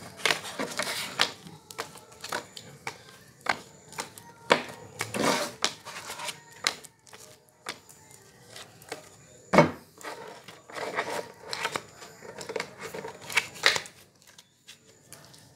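Playing cards being shuffled and dealt onto a wooden bench top: an irregular run of card clicks and soft slaps, the sharpest about nine and a half seconds in, quieter near the end.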